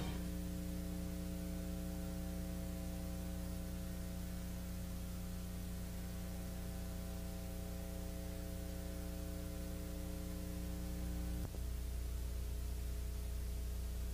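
Steady electrical mains hum with a faint hiss. About eleven seconds in there is a small click, after which the higher hum tones drop away and the low hum carries on.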